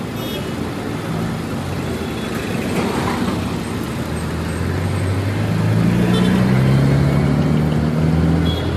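City bus engine running as the bus turns and drives close past, its engine note growing louder through the second half, over steady street traffic noise.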